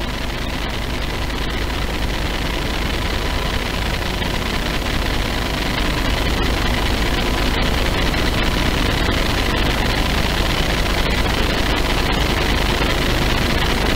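Road traffic at a standstill in a jam: vehicle engines idling under a steady noisy din that slowly grows a little louder.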